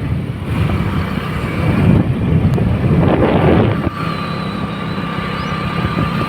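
Motorcycle running while riding, with wind buffeting the microphone in loud, gusty rumbles; a thin steady high tone joins about four seconds in.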